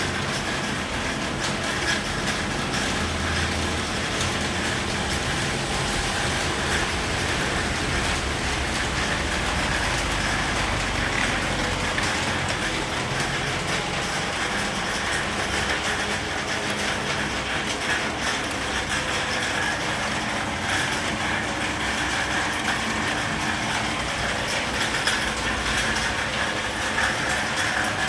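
Steady rain falling, a dense, even hiss of many small drop ticks.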